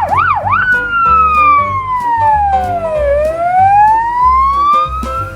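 Police siren: three quick whoops, then one long wail that falls slowly and rises again. Underneath is background music with a steady beat.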